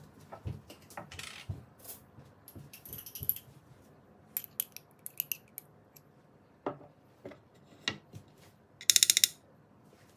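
Metal spoon clinking and tapping in light scattered clicks, then about nine seconds in a short, loud, rapid rattle as the spoon scrapes a dollop of whole-grain mustard off onto a slate plate.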